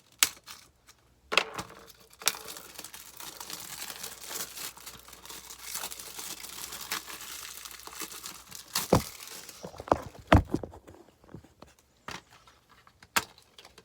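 Plastic shrink-wrap being torn and peeled off a DVD case: a few sharp clicks, then several seconds of steady crinkling, then scattered knocks and clicks from the plastic case being handled, the loudest of them near the end.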